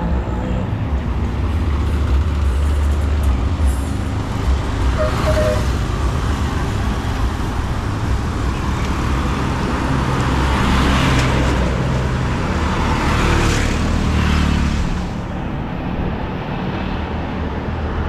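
Busy road traffic: motor vehicles passing close by with a steady low engine rumble, swelling with louder passes around ten and thirteen seconds in.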